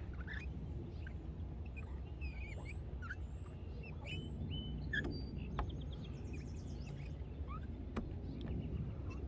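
Several songbirds chirping and whistling in short, varied calls, including a quick trill about six seconds in, over a low, steady background noise.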